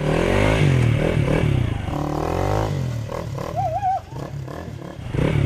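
Motorcycle engine running and revving unevenly while riding a rough dirt trail, with some clattering.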